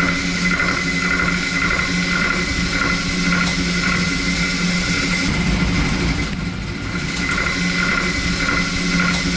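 DN Solutions Puma 2600SY II CNC lathe running while cutting metal: a steady machine hum with a high whine, easing off briefly about six seconds in.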